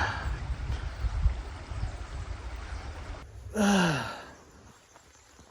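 A low rumble on the microphone, then a man's long sigh, falling in pitch, about three and a half seconds in.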